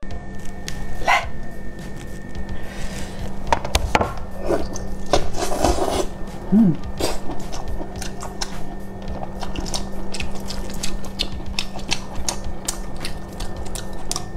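Wet squishing and sticky clicking of plastic-gloved hands lifting and pulling apart a whole sauce-covered octopus, over a steady low hum.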